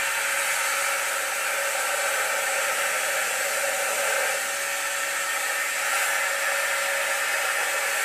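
A 230-volt electric air blower running steadily, inflating a chamber of a foldable inflatable dinghy through its valve: an even rush of air over a steady motor tone.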